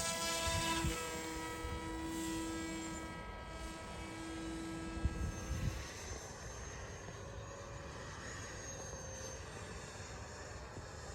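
Electric RC model airplane motor whining at full power: it has just spooled up and holds a steady high pitch, then fades after about six seconds as the plane draws away. Gusty wind rumbles on the microphone, with a couple of thumps.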